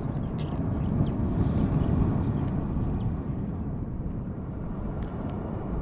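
Steady low outdoor rumble of wind and ocean surf, with a few faint clicks.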